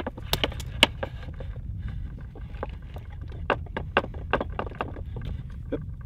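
Wire cutters being squeezed and turned around a heavy 10-gauge stranded wire to score its insulation for stripping: a series of sharp, irregular clicks, clustered at the start and again in the second half, over a steady low rumble.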